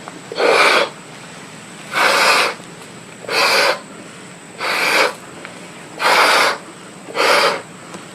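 A person blowing up a latex balloon by mouth: six strong breaths, about one every 1.3 seconds.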